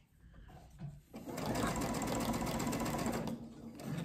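Sewing machine with a walking foot stitching a straight quilting line through the layers of a quilt. It starts about a second in, runs fast and steady, and gets somewhat quieter near the end.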